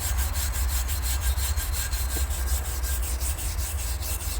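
A brush scrubbing loose rust and dirt off a rusty steel shotgun barrel in quick, even back-and-forth strokes, with a low rumble underneath.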